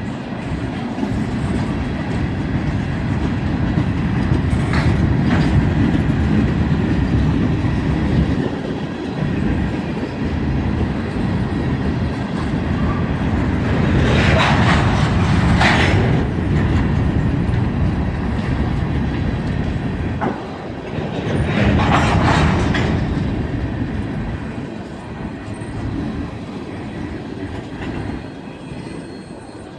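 Freight train rolling past, a steady rumble with wheels clattering over the rail joints. Two louder bursts of higher-pitched noise come about halfway through and again about three-quarters of the way in, and the rumble fades slightly near the end.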